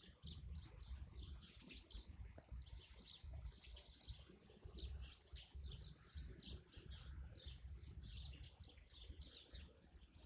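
Faint birdsong: many short chirps throughout, over a low, uneven rumble.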